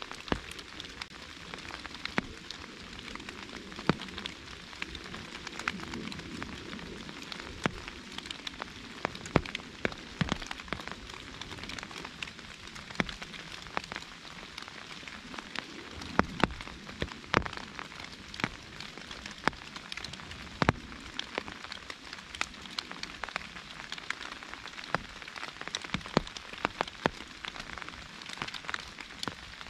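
Rain pattering on an umbrella and forest leaves: a steady hiss of rain with many separate drop hits at irregular intervals, some of them much louder and sharper.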